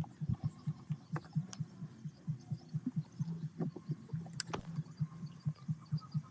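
A machine running with a steady low throb, about five pulses a second. A few sharp metallic clicks sound over it, the loudest about four and a half seconds in.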